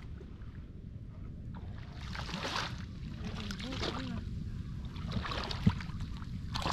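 Water splashing and sloshing in shallow paddy water, over a steady low rumble. A sharp thump comes about two-thirds of the way through.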